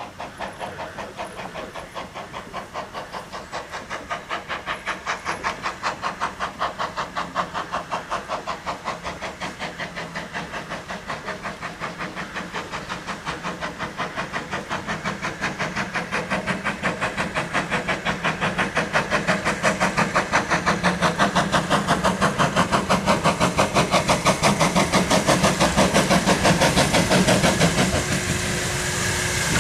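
Ivatt Class 2MT 2-6-2 tank steam locomotive No. 41312 approaching with a train, its exhaust chuffing in a fast, even rhythm that grows steadily louder. The sound drops suddenly near the end.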